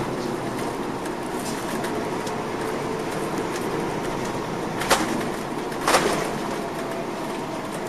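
Cabin noise of a 2004 MCI D4500CL coach under way: steady hum of its Caterpillar C13 engine and tyres on the road. Two sharp knocks about a second apart past the middle.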